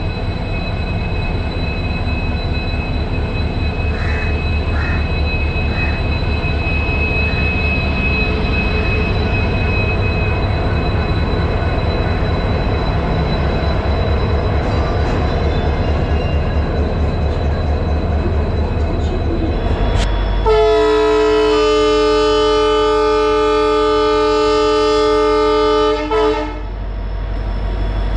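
Train running with a steady low rumble; about twenty seconds in, a train horn sounds one long blast of several tones for about five seconds and then cuts off.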